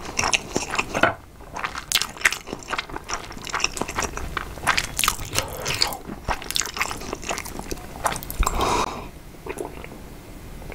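Close-miked crunching and chewing of crisp food in the mouth: a dense run of sharp crunches that thins out and goes quieter near the end.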